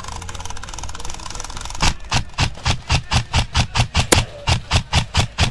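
Airsoft rifle firing a rapid string of semi-automatic shots, about five a second, starting about two seconds in.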